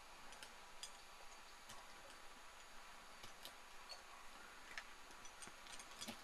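Near silence: a faint steady hiss with scattered light, irregular clicks.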